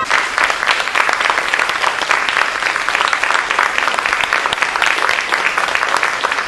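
Theatre audience applauding steadily, a dense patter of many hands clapping, right after the singing stops.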